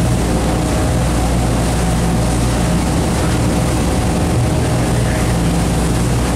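A large fishing party boat's engines running steadily underway: a constant low drone with steady hum tones. Over it is the rush of the churning wake and wind in rough seas.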